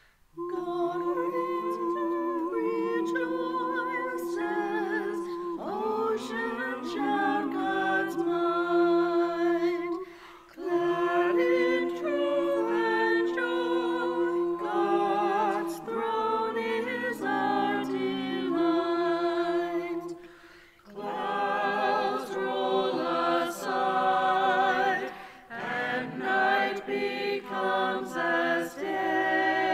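A choir singing in long sustained phrases, with short breaks about ten, twenty and twenty-five seconds in.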